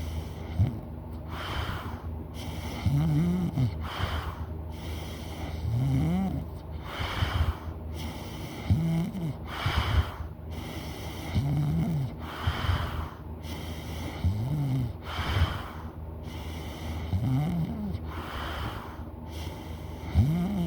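A person snoring loudly in a slow, even rhythm of about one breath every three seconds. Each breath has a pitched snore that rises and falls, and a breathy rush of air.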